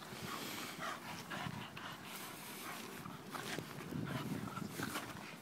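Staffordshire bull terrier panting in quick, uneven breaths, out of breath from running after a fetch toy.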